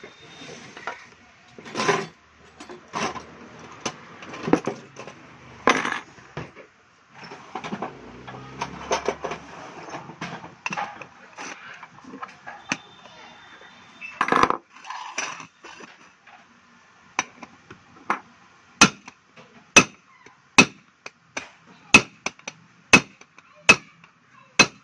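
Metal pressure cooker lid being handled and struck with a hammer: scattered knocks and clinks, then a steady series of sharp hammer blows about one a second in the second half, beating out the dented lid.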